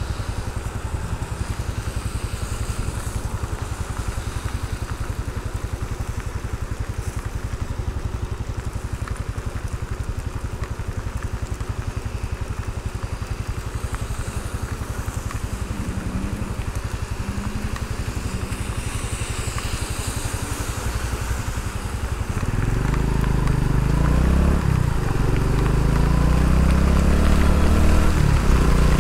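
Honda Pop 110i's small single-cylinder engine running steadily at low revs, then near the end getting louder as the motorcycle pulls away and accelerates, its pitch rising and dropping back a couple of times.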